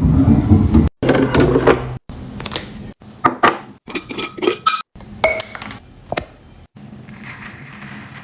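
Food containers and packages being handled and set down in a series of short edited-together clips: clinks, knocks and taps of glass and hard plastic, each clip cut off abruptly.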